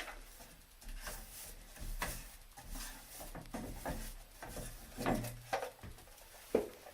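Pliers gripping and turning a metal shower head off its arm, with scattered small clicks, clinks and scraping of metal on metal.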